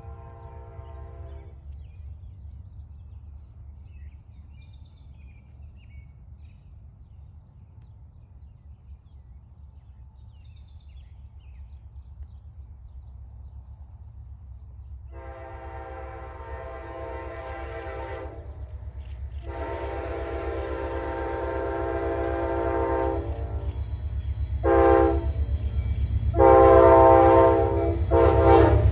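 Amtrak GE P42DC diesel locomotive's air horn sounding a crossing sequence as the train approaches: two long blasts, a short one, then a long one still sounding at the end. Under it, the train's low rumble grows steadily louder. An earlier blast ends about a second and a half in.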